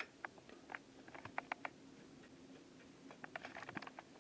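Faint clicking of a computer keyboard and mouse, in two short irregular runs, over a low steady hum.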